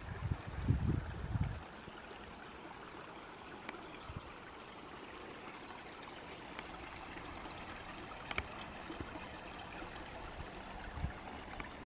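Shallow stream trickling over stones, a soft, steady water sound. Some irregular low rumbles come in the first second and a half, then stop.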